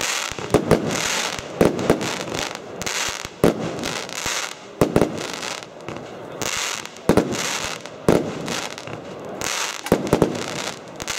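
Rubro Secret Salute 54-shot salute cake firing. Its shots go up with a hiss and burst in sharp, loud titanium-salute bangs, about one every second or so, some coming in quick pairs.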